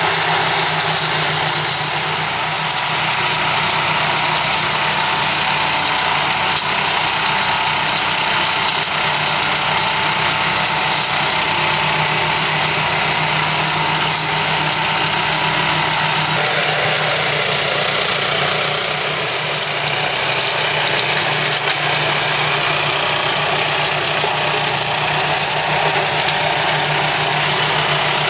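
Orec AHRC662 walk-behind flail mower running steadily under load, its engine and spinning flail rotor cutting through tall weeds and brush.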